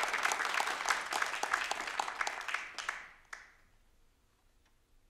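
Audience applauding in a concert hall. The clapping thins out and dies away about three seconds in, ending with one last single clap.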